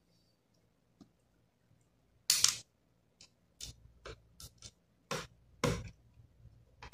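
Small screwdriver and plastic laptop bottom cover being handled as the cover's screws are driven back in: a string of sharp clicks and short scrapes, the loudest about two seconds in and again near six seconds.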